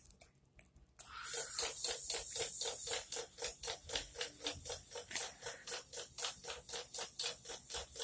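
Rapid, even ratchet-like clicking, about four to five clicks a second, that starts about a second in and keeps up until near the end.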